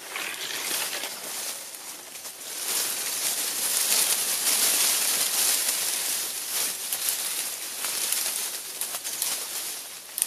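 Leaves and branches rustling as a person pushes through dense bushes, swelling about two and a half seconds in and easing off near the end, with a few light crackles of twigs near the start.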